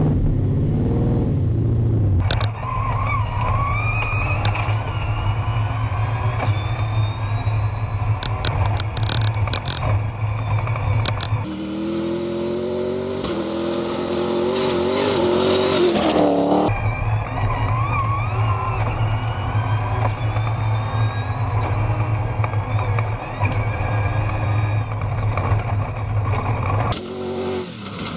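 Rally-raid pickup's engine running hard on a gravel track, a steady drone whose pitch climbs as it accelerates. Between about 11 and 17 seconds the sound changes to the car heard from outside, its engine note rising and falling with a rush of gravel and dust. Sharp clicks of stones run through it.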